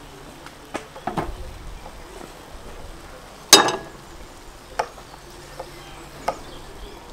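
A metal bowl set down with one loud clang on a steel stove top about halfway through, while meat sizzles in a wide steel pan with a few sharp pops and knocks.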